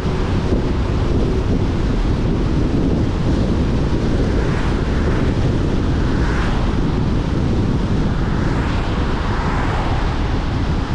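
Steady road and wind noise from a car driving at road speed: a low rumble with a few brief swells of hiss.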